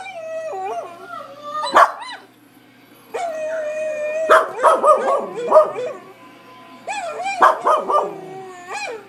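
Long, wavering dog howls from a video playing on a laptop, mixed with a small dog's short barks and yips answering it. There are several drawn-out howls, with sharp barks breaking in between them.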